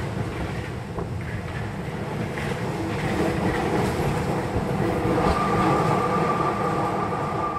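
Paris Métro train running through a tunnel, heard from on board: a steady, continuous running noise of wheels on rails. A high steady whine comes in about five seconds in.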